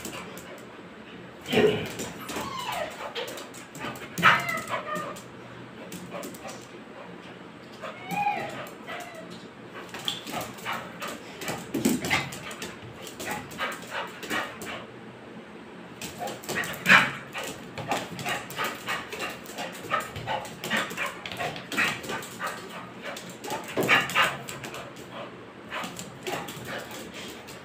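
American pit bull terrier giving short barks and yips, with high wavering whines between them, over many quick sharp taps.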